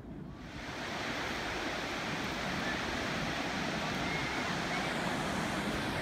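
Ocean surf breaking and washing on a sandy beach, a steady hiss that comes up within the first second, with a low wind rumble on the microphone underneath.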